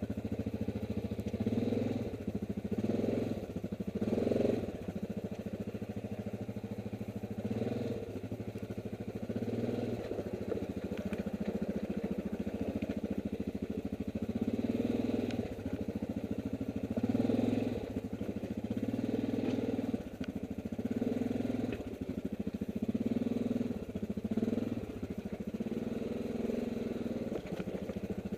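ATV engine running at low speed while the quad crawls down a rough, rocky trail. The engine note rises and falls in short swells every couple of seconds.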